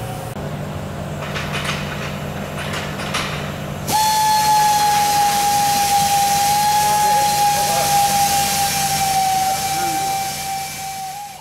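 A power tool running with a steady high whine and hiss. It starts suddenly about four seconds in and fades out at the end. Before it there is a steady workshop hum with a few light knocks.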